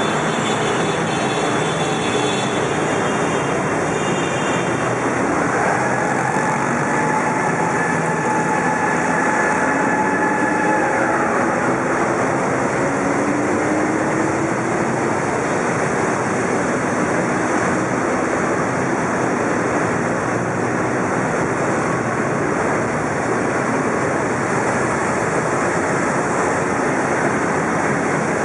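Many motorcycle engines running in a steady, dense noise as a long column of motorcycles rides past inside a road tunnel. About five seconds in, a held tone stands out for several seconds, bending slightly in pitch.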